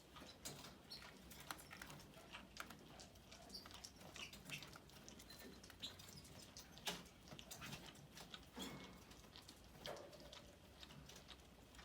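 Faint, irregular clicking and ticking of baby canaries pecking at soft food in their cage, with a few short high notes.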